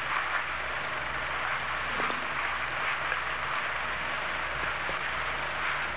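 Steady hiss with a low hum underneath and a few faint clicks.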